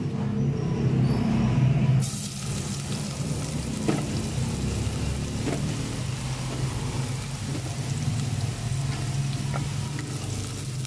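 Chopped garlic starts sizzling in hot oil in a stainless steel pot about two seconds in and sizzles steadily. A wooden spatula gives a few light knocks as it stirs, over a steady low hum.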